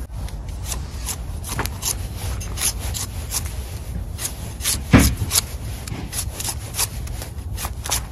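A kitchen knife scraping and cutting the rough skin off a celeriac root in short, irregular strokes. The loudest stroke comes about five seconds in.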